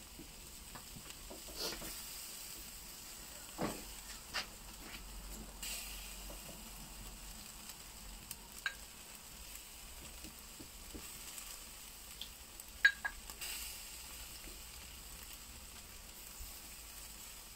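Chicken and skewered meat sizzling on a charcoal barbecue grill, freshly brushed with marinade, a steady faint hiss. A few scattered clicks and pops, the loudest about two-thirds of the way through.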